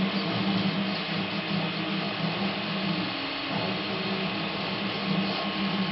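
Video projector of a structured-light 3D scanner running: a steady hum over an even hiss. The hum dips briefly a little past halfway.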